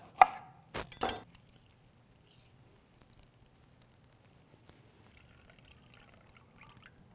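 A chef's knife chopping through a lime onto a wooden cutting board: three sharp knocks in the first second or so, the first the loudest. Near the end, a faint trickle of lime juice poured into a small metal measuring cup.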